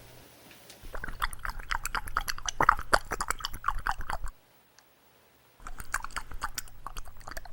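A cat chewing food, with quick wet crunching clicks. The chewing comes in two stretches with a short pause in between.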